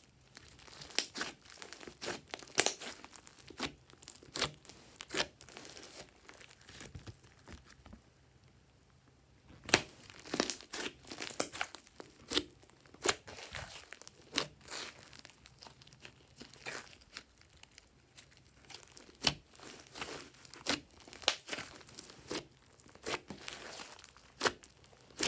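Hands squishing and kneading thick pink slime with small foam beads mixed in: a string of sharp crackling pops and clicks. The pops thin out for a few seconds in the middle and pick up again about ten seconds in.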